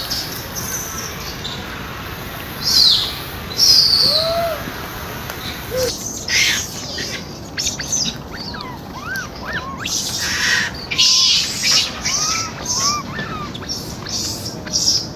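Wild birds chirping: a few high, falling chirps in the first seconds, then a run of many short whistled notes, with brief bursts of hiss in between.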